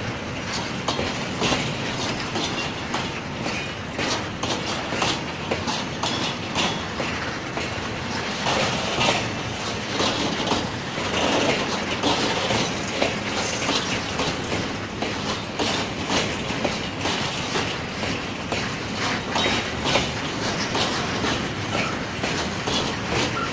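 Freight train of tank wagons rolling past close by: steel wheels clattering over the rail joints in a continuous run of irregular clicks over a steady rolling noise.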